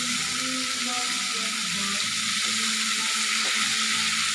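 Hot wok of sautéed aromatics sizzling steadily as vinegar is poured in from a jug.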